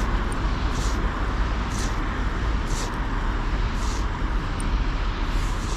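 Steady outdoor city background noise, a low rumble with traffic in it, with a soft high hiss that repeats about once a second.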